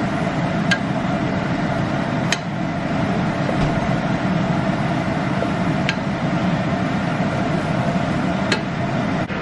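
Chopped tomatoes, peppers and onions simmering and sizzling in a pot with a little added water: a steady bubbling hiss. A wooden spatula stirs them and clicks sharply against the pot about four times.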